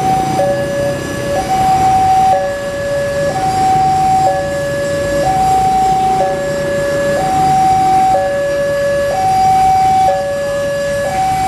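Railway level-crossing warning alarm sounding as the barrier closes: an electronic two-tone signal alternating high and low, each tone held about a second. It warns that a train is approaching.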